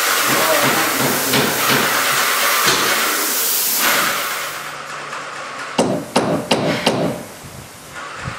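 Airless paint sprayer hissing as it sprays through a wand on a long extension. It starts abruptly and fades after about four and a half seconds. About six seconds in, a quick series of five or six sharp knocks follows.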